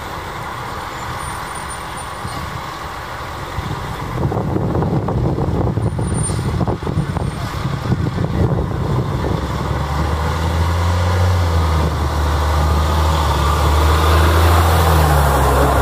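A fire department water tanker truck's engine pulls away and drives closer, growing louder as it nears. Its pitch dips briefly near the end.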